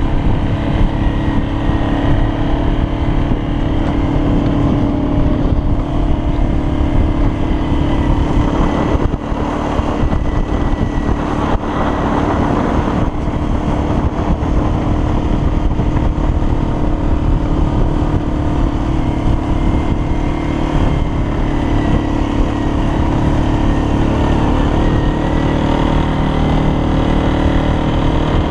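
A motor vehicle's engine running steadily at a high, even speed, with a strong steady hum. It starts abruptly at the outset and barely changes in pitch.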